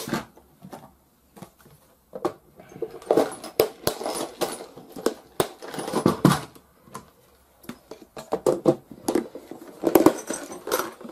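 Small metal air-rifle parts rattling in clear plastic storage tubs as the tubs are handled, with the lids pressed on and their clip latches snapped shut: a run of irregular clicks, knocks and rattles.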